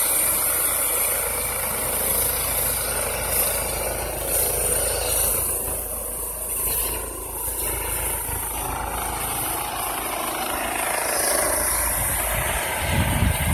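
Twin-engine medical helicopter lifting off: steady loud rotor and turbine noise with a high hiss over a low rumble, the rumble swelling near the end.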